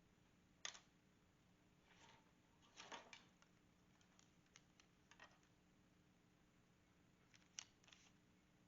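Near silence: a faint steady hum with a handful of short, faint clicks and knocks scattered through it.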